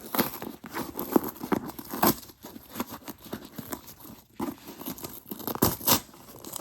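A mailed package being opened by hand: irregular tearing, ripping and crinkling of packaging, with sharp crackles now and then.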